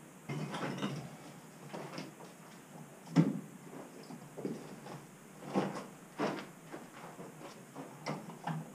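Irregular knocks and clatters of brick rubble and buckets being handled while clearing demolition debris. The sharpest knock comes about three seconds in, with more a couple of seconds later.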